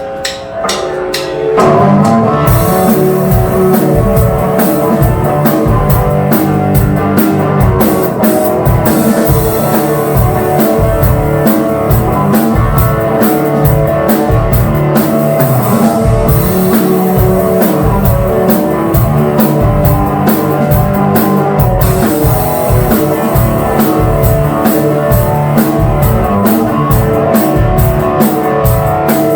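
Rock band playing an instrumental passage on drum kit and guitars, the full band coming in loud about a second and a half in after a quieter start of sharp drum taps.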